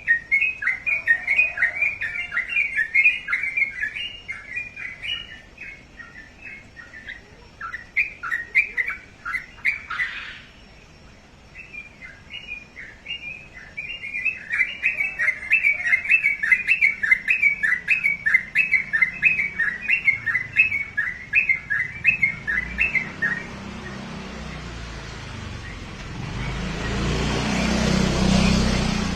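A songbird of the kind Indonesian keepers call ropel, singing a fast, continuous run of high chirping notes. It pauses briefly about ten seconds in, then sings on for another eleven seconds or so. After the song stops, a broad rushing noise swells up, peaks and falls away near the end.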